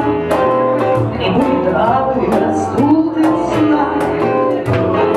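Live band music: a woman singing over hollow-body electric guitar, keyboard piano and bass guitar.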